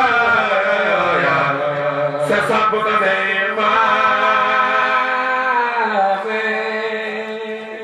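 A man's solo chant sung into a microphone, in long held notes that bend and slide between pitches; it grows quieter near the end.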